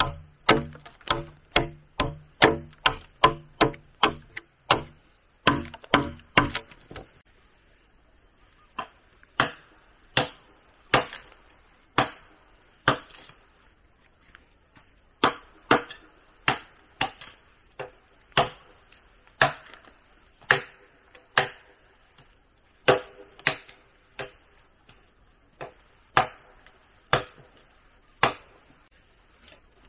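Wood being chopped with a blade. Quick strikes come about three a second for the first seven seconds, then slower blows about one a second.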